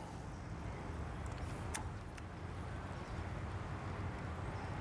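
Steady low outdoor background rumble, with a single sharp click a little under two seconds in.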